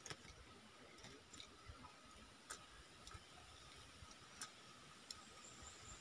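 Near silence broken by about seven faint, scattered sharp clicks, from the caged bulbuls moving about in their wire trap cage, over a faint steady high tone.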